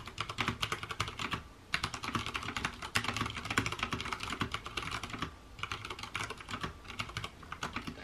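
Fast two-handed typing on a Durgod Taurus K320 mechanical keyboard with Cherry MX Brown switches: a rapid, continuous clatter of keystrokes, broken by two short pauses.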